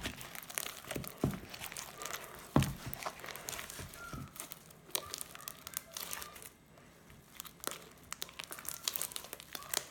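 Thick fluffy butter slime being stirred and worked in a bowl, giving irregular sticky clicks and pops. It grows quieter about six and a half seconds in.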